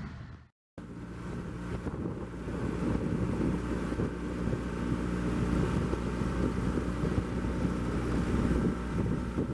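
Boat motor running steadily, with wind on the microphone. The sound fades out to silence about half a second in, then comes back abruptly and stays steady.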